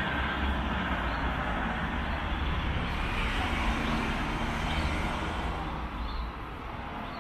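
Street traffic: a motor vehicle passing close by, its engine rumble and tyre noise easing off about six seconds in.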